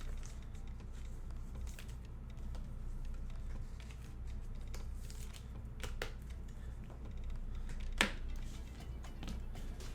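Trading cards being handled and sorted by hand, with a few sharp clicks and taps, the loudest about eight seconds in, over a steady low hum.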